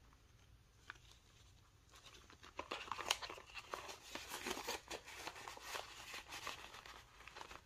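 Paper banknotes crinkling and rustling as they are handled, counted and slid into a binder's vinyl envelope. It is faint, with one small click about a second in; the rustling builds from about two and a half seconds in and goes on in irregular bursts.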